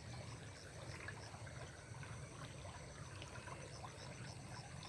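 Water trickling and flowing in a small stream, steady and fairly quiet, with a faint high-pitched pulsing going on evenly in the background.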